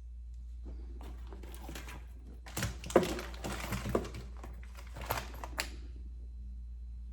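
Hair rustling with light clicks as metal hairpins are pulled out of pinned curls. The sharpest click comes about three seconds in, with smaller ones after.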